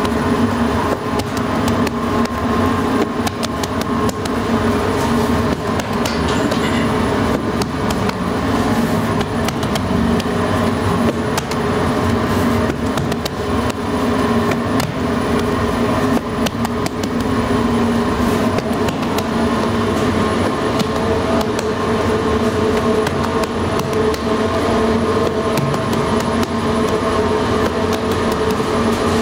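Loud, steady drone of bakery machinery with several steady humming tones running under it. Scattered light pats of hands shaping barbari dough are heard over it.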